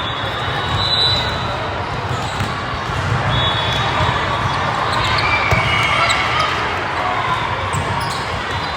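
Volleyball match play in a large echoing hall: balls bouncing and being struck, with a steady din of voices and a few short high-pitched squeaks.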